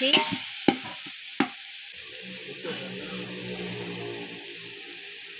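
Onion, tomato and mint masala sizzling in hot oil in a large aluminium pot. A metal ladle stirs it and knocks twice against the pot in the first second and a half.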